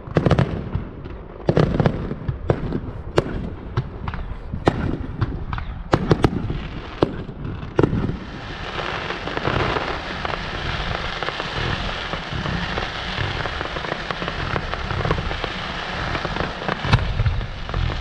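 Fireworks going off: separate sharp bangs for the first half, then from about eight seconds in a dense, continuous crackle.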